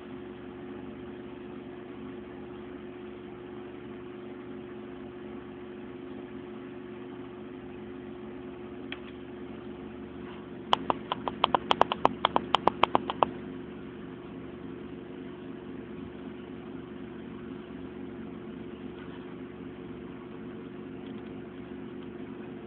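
Desktop PC running with a steady hum from its fans. About halfway through there is a single click, followed by a quick run of about fifteen sharp clicks lasting a couple of seconds.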